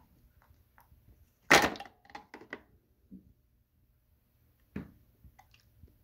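Hard plastic snaps and clicks as the solution tank of a Hoover PowerDash GO spot cleaner is unlatched and pulled off the machine. One loud snap comes about a second and a half in, followed at once by a few lighter clicks, and another knock comes near the end.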